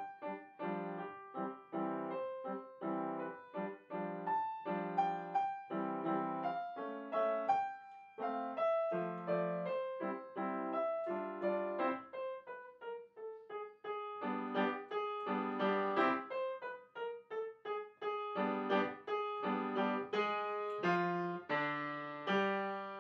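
Solo piano music: notes struck several times a second, each fading, with a melody that steps gradually downward in pitch.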